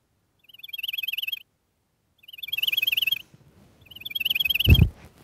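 Cell phone ringing with a warbling, chirp-like electronic tone: three bursts about a second long, a second apart. A dull thump comes near the end.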